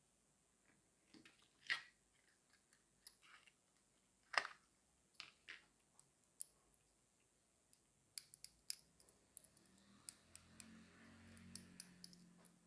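Clear plastic blister tray handled and a KeySmart aluminium key organizer lifted out and turned over in the hands: scattered light clicks and taps of plastic and metal, the loudest about four seconds in, with a quick run of small ticks and a soft rustle near the end.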